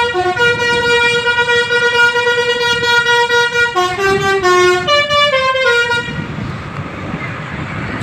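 Bus's multi-tone 'telolet' musical air horn playing a tune: one long held chord, then a quick run of changing notes, cutting off about six seconds in and leaving a rumble of background noise.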